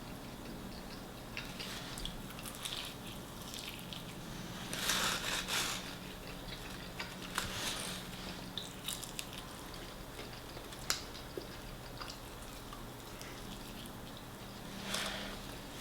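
Close-up eating sounds of fried chicken being bitten and chewed: scattered wet mouth clicks and crunching, with a louder crunchy bite about five seconds in and another near the end.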